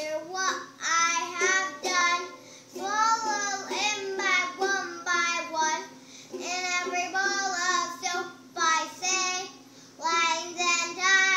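A young girl singing a song in short phrases with brief pauses between them.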